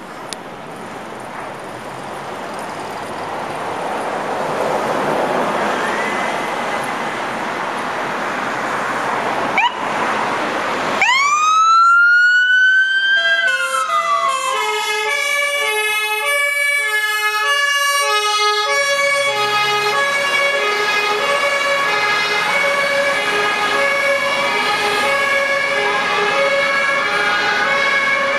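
Vehicle and engine noise builds for about ten seconds. Then a fire-brigade siren winds up in a rising whine, falls away, and gives way to two-tone sirens from more than one emergency vehicle, a VW Multivan incident-command van and a Magirus ladder truck, alternating and overlapping steadily.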